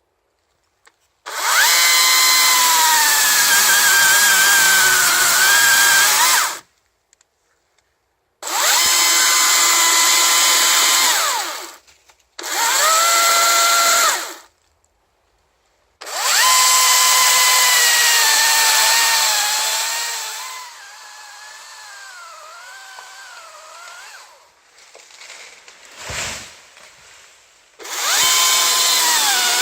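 Husqvarna 536Li XP battery chainsaw cutting a coppice stem in five bursts of a few seconds, its electric motor whine dipping in pitch under load in the cut and stopping dead between cuts with no idle. Partway through the saw runs much quieter and wavering for a few seconds, and a single thump sounds shortly before the last burst.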